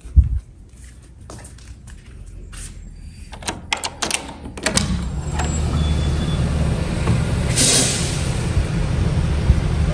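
A thump, then sharp clicks and rattles of a front door's deadbolt and handle being worked about three to five seconds in. Once the door opens, steady outdoor noise with a low rumble takes over.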